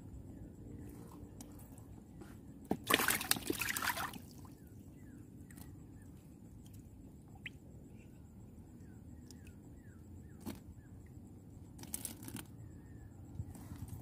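Water sloshing and splashing, with a louder burst of splashing about three seconds in and a shorter one near the end.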